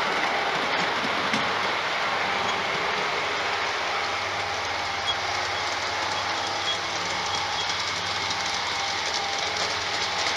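LGB G-scale model trains running on a garden railway: a steady whirr of their electric motors and wheels rolling over the track.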